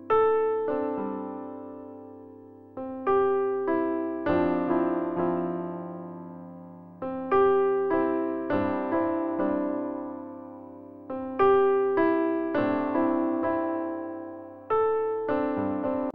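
Background electric piano music: notes and chords struck and left to fade, with a new strong chord every three to four seconds.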